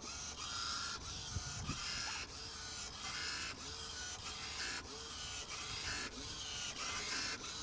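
Electric wave-maker paddle of a small demonstration wave tank running. It makes a rhythmic mechanical whir that repeats in short, even strokes about every half second as it drives a set of waves down the tank.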